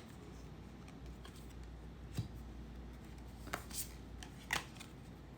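Oracle cards being handled and turned over one by one: a few short, crisp card snaps and slides, with a low steady hum underneath.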